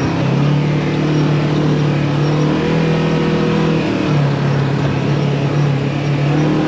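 Off-road vehicle driving on a rough dirt track: its engine runs with a steady drone that dips a little in pitch about four seconds in, under a constant rush of road noise.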